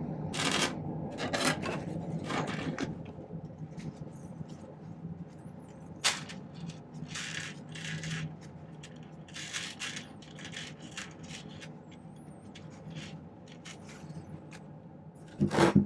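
Short scrapes, rubs and small metallic clinks of a sterling silver clasp and hand tools being handled on a workbench, with a sharp click about six seconds in and a louder clatter just before the end.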